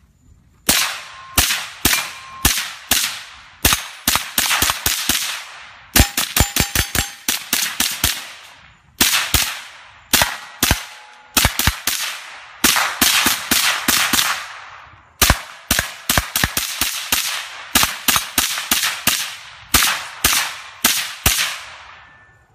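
Suppressed FN PS90 with a 10-inch barrel and an Innovative Arms Sheppard suppressor, firing 5.7×28mm rounds semi-automatically. Dozens of sharp shots come in strings, each trailing off briefly: a few spaced shots at first, then fast runs of several shots a second.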